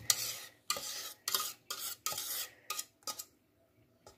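A utensil scraping thick, freshly cooked pastry cream out of a pot into a glass bowl: a quick run of about eight short scrapes that stops a little after three seconds in.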